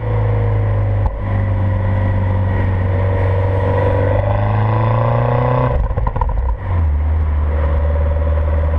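Mini Clubman R55 engine and stock exhaust under way, the note rising slowly as it pulls for several seconds. About six seconds in it breaks briefly with a rattle, then settles to a steady, lower note, as with an upshift.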